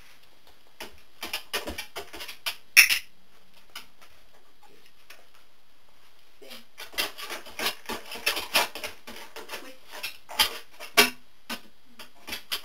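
A Labrador's claws and paws tapping and scraping on a homemade wobble board as it steps on and the board rocks on its curved base. The clicks come quick and irregular, with one sharp louder click about three seconds in and the densest clicking in the second half.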